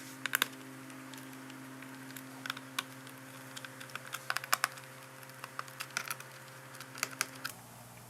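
Scattered light clicks and ticks of a precision screwdriver turning the captive screws in a Dell 3110 2-in-1 Chromebook's plastic bottom cover, in small irregular clusters, over a faint steady hum.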